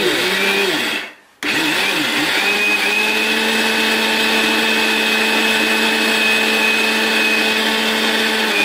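A 750-watt Sahara mixer grinder runs at speed, dry-grinding chickpeas into gram flour in its small steel jar, with a steady high motor whine. The sound drops out briefly about a second in, wavers as it picks up again, then runs on evenly.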